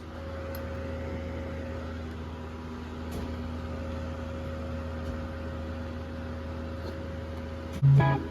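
A steady machine hum with a constant tone over a low drone. Near the end, a guitar chord cuts in loudly.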